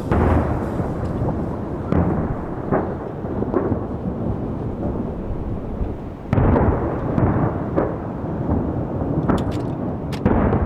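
Aerial firework shells bursting, deep booms with long rolling rumble: one at the start, another about two seconds in, and a heavy barrage about six seconds in. Sharp cracks come near the end.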